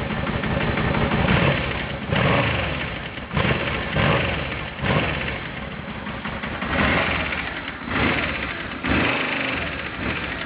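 Aprilia RSV motorcycle engine being blipped again and again. The revs jump about six times, and after each blip the pitch falls back. The owner is revving it to show a strange noise he cannot place.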